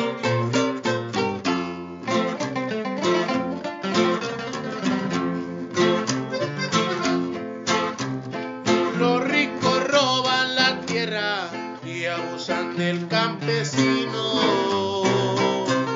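Instrumental corrido music: an accordion playing the melody over strummed guitar keeping a steady rhythm.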